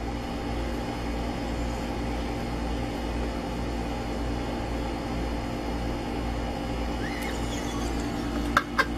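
A steady hum with several constant tones, like a running machine or fan, and a couple of sharp clicks near the end.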